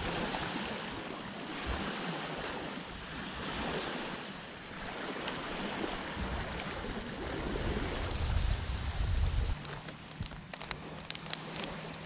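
Small waves lapping and washing up on a sandy, shell-covered shoreline, with wind rumbling on the microphone. Near the end the sound changes to a run of sharp crunching clicks, like steps on sand and shells.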